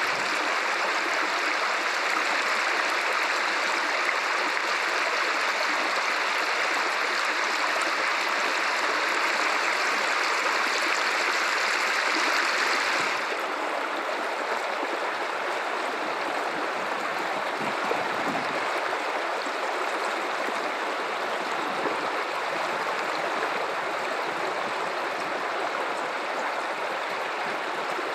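Guadalupe River water running and rushing steadily. About halfway through, the sound suddenly becomes a little quieter and less bright, then carries on evenly.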